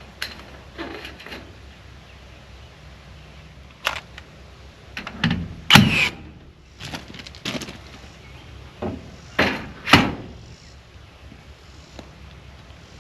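A series of irregular knocks and thuds, the two loudest about six and ten seconds in.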